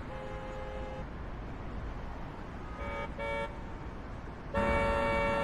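City traffic ambience from a Krotos Studio preset: a steady hum of traffic with car horns honking. One horn is held for about a second at the start, two short toots come about three seconds in, and a longer, louder honk sounds near the end.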